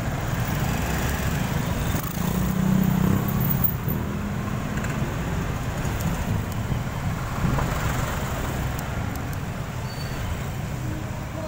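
Steady road and traffic noise from moving through a street, with wind rumbling on the microphone.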